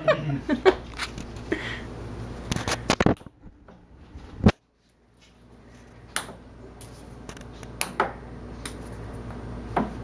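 Scattered light taps and knocks of a small cat toy ball being tossed onto and bouncing about a carpeted cat tree, with one sharper knock about four and a half seconds in.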